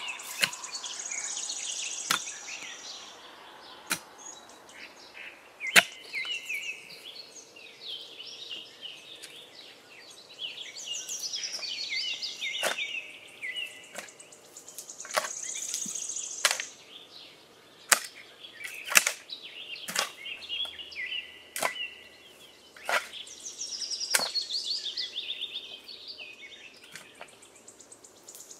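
Mattock blade chopping into dry soil in sharp, irregular blows every second or two. A songbird sings repeated chirping phrases under the strikes.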